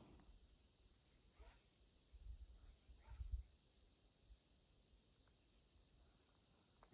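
Near silence, with a faint steady high-pitched insect trill throughout and a couple of faint low thumps in the middle.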